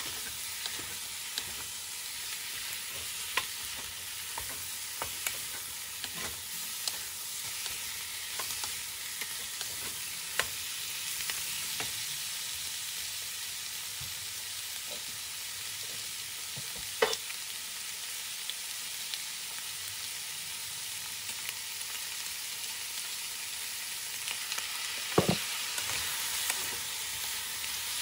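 Chicken pieces with onion and ginger sizzling in oil in a nonstick frying pan, stirred with a wooden spoon that taps and scrapes against the pan now and then. The sharpest knocks come about two-thirds of the way in and again near the end.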